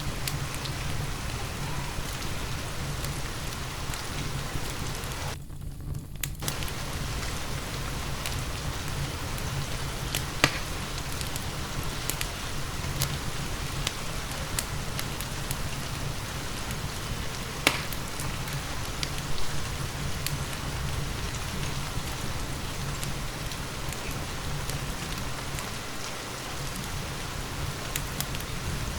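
Steady rain with occasional sharp crackles and pops from a wood fire in a fireplace. The higher hiss of the rain briefly cuts out about six seconds in.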